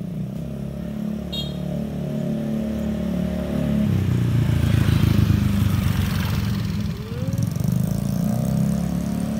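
A motor vehicle's engine passing close by on the street, growing louder to a peak around the middle. About seven seconds in the sound dips, then an engine note rises in pitch near the end.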